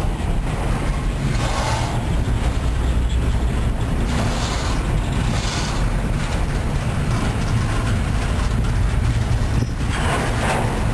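Double-stack container train rolling past close by: a steady rumble of railcar wheels on the rails, with a few brief louder rattles.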